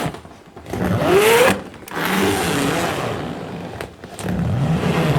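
A zipper being zipped in three separate strokes, the first short with a rising pitch, the later two longer.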